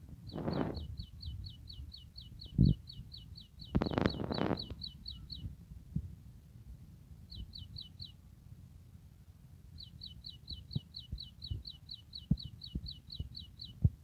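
A bird calling in quick runs of short, high, downward-slurred notes at about four a second: a long run, a brief one past the middle and another near the end. Low rumbles and bumps sound under it, loudest in the first half.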